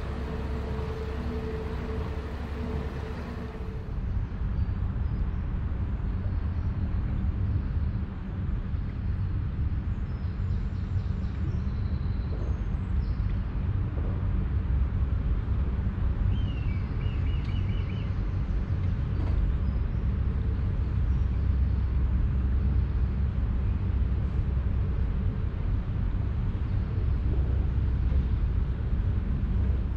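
A narrowboat's engine runs steadily under way for the first few seconds, then a steady low rumble takes over, with a few bird chirps in the middle.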